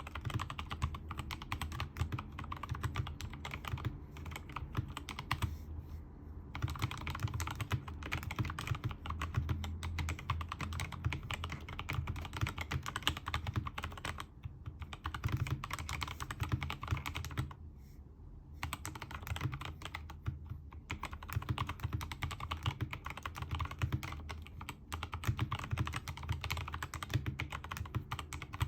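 Typing on a Keychron K2 mechanical keyboard with Gazzew Boba U4T tactile switches lubed with Krytox 205g0, PBT XDA-profile keycaps and a silicone-filled aluminium case. A dense stream of keystrokes, broken by a few short pauses.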